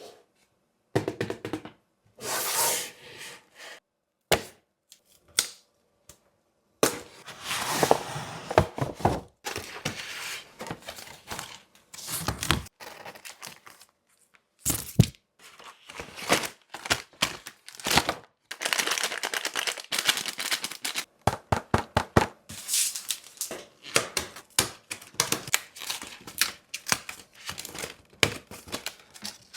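Packaging of an Oreo assortment being unboxed up close: plastic and cardboard crinkling and tearing, with sharp clicks and cracks, in short bursts broken by silent gaps.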